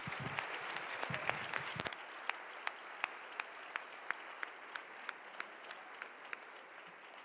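Audience applause gradually dying away. One person's claps, about three a second, stand out clearly above the rest.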